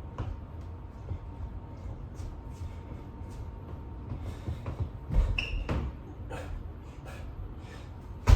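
Soft thumps and shuffling of a person doing burpees on a floor: hands and feet landing and scuffing in an irregular run of knocks, with a louder thump about five seconds in and a sharp, heavy thud near the end.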